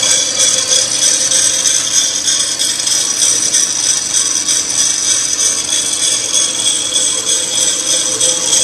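Student-built coffee bean roaster running with beans inside, a steady mechanical whir with several constant high-pitched tones over it.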